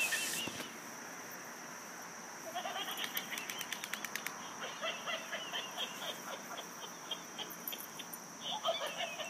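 Laughing monkey toy giving its chattering, screeching laugh: a short burst at the very start, then a rapid string of short, high yelps from about two and a half seconds in.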